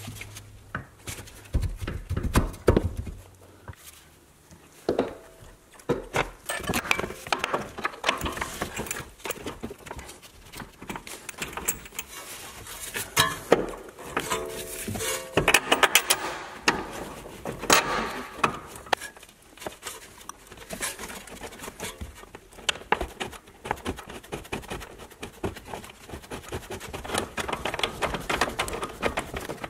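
Metal knocks, clinks and scrapes as a BMW E60's front steering knuckle and control arm are worked into place by hand. Near the end comes a quick, steady run of ratchet-wrench clicks as the control-arm bolt is snugged up.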